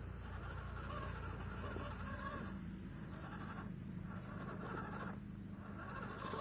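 Small electric motor and gearbox of a 1:12-scale RC crawler whining while it is driven over rocks. The whine cuts out briefly twice, a little after halfway and again near the end, as the throttle is let off and picked up again.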